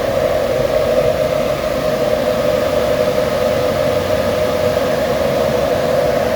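Cooling fans of rows of Bitcoin ASIC mining rigs running at full speed inside a mining container: a loud, steady whir with a constant drone in it.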